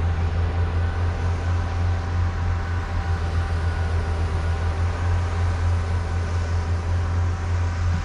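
Steady hum of a camera drone's motors and propellers in flight: a strong even low hum with fainter steady whines above it.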